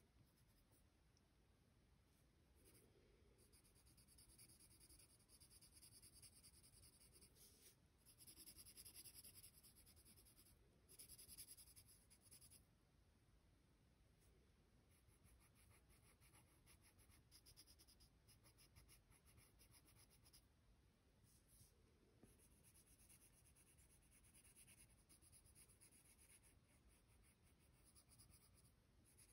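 Faint scratching of a pencil on paper in short shading strokes, a little louder in two brief spells about a third of the way in.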